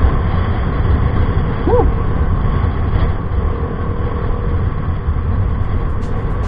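Yamaha Mio i 125 single-cylinder four-stroke scooter with an Apido V3 aftermarket exhaust pipe running on the road, a steady exhaust note under heavy wind rumble on the microphone. A short high rising-and-falling tone sounds about two seconds in.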